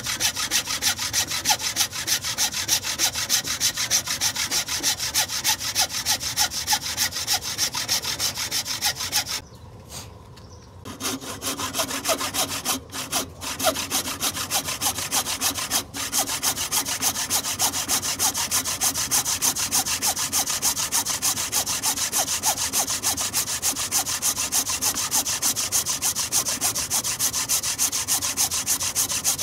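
Thin-bladed hand saw cutting through a square hardwood post, the blade rasping back and forth in quick, even strokes. The sawing breaks off briefly about ten seconds in, then resumes and runs steadily on.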